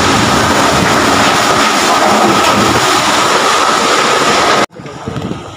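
Typhoon-force wind blasting the phone's microphone as a loud, steady roar. It cuts off abruptly near the end, leaving a much quieter rush of wind and rain.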